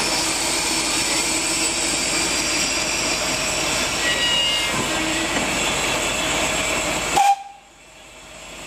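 Steam hissing steadily from a GWR 1600 class pannier tank locomotive, No. 1638. About seven seconds in it stops abruptly with a brief higher note, leaving it much quieter.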